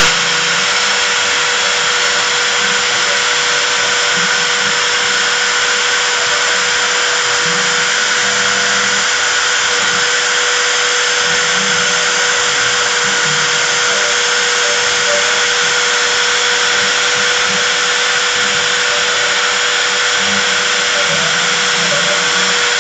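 CNC router spindle running at a steady speed with a constant whine, machining 3 mm brass plate.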